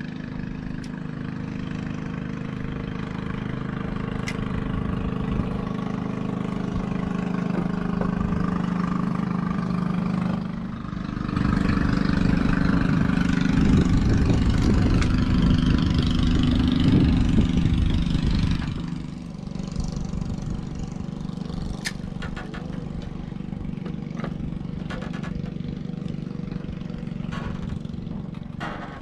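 A motor engine running steadily with a low drone, swelling louder and rougher for several seconds in the middle before easing back.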